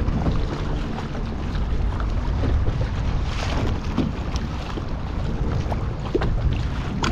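Wind buffeting the microphone as a steady low rumble, with choppy water lapping and slapping against a plastic fishing kayak's hull in short irregular splashes.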